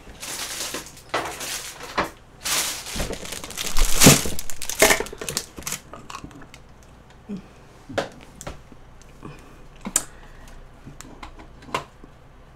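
Plastic bag rustling and crinkling for several seconds as things are cleared away, loudest around the middle. It is followed by a few scattered light knocks and clicks of plastic bowls and tableware being handled.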